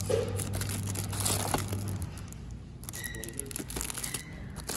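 Plastic wrapping crinkling and rustling as shrink-wrapped canvas art prints are handled and shuffled on a store shelf, in two spells of handling with a lull about halfway through.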